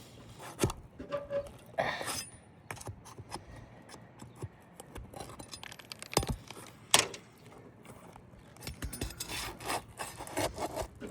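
Metal flat bar and roof snake scraping and clinking under asphalt shingles as roofing nails are worked loose, with scattered sharp metal clicks, the loudest about seven seconds in.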